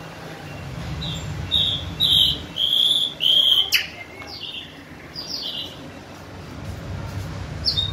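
Caged bulbul singing: short clear whistled notes, several in quick succession in the first half, then a few more spaced out near the end. A steady low hum runs underneath, with a single sharp click midway.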